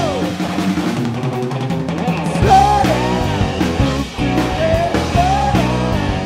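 Blues-rock power trio of electric guitar, bass guitar and drum kit playing. The low end drops away for about the first two seconds, and the full band comes back in about two and a half seconds in.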